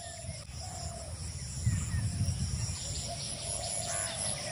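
Background ambience: a steady high-pitched insect buzz with a few faint bird chirps over a low rumble.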